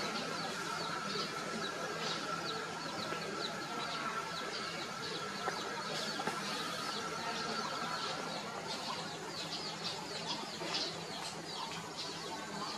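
Domestic chicken chicks peeping over and over: many short, high, falling cheeps, several a second, over a faint steady tone.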